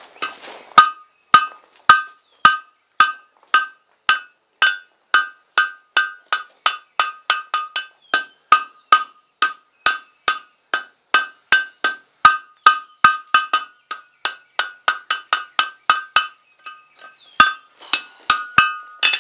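Hand hammer forging red-hot steel bar stock on an anvil: a long steady run of blows, about two a second at first and then about three a second. Each blow rings briefly. There is a short pause near the end, then a few quick blows.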